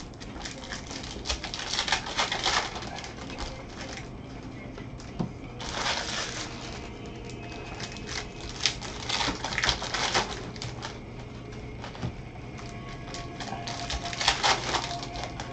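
Foil baseball card pack wrappers being torn open and crinkled by gloved hands, with cards handled and slid against each other, coming in four bursts of crackling and clicking.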